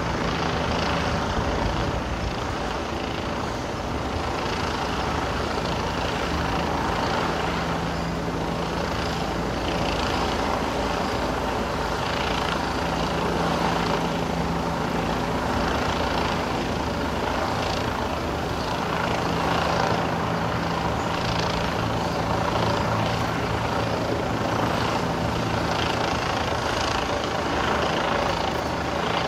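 Helicopter hovering and circling low overhead, its rotor and engine making a steady drone.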